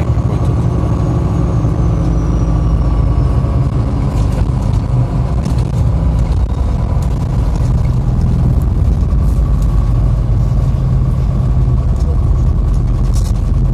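Street traffic: cars passing close by with a steady low engine and road rumble. A faint high whine slowly falls in pitch over the first few seconds.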